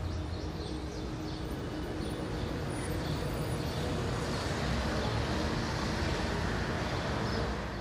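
Steady city street ambience of passing road traffic, beginning to fade near the end.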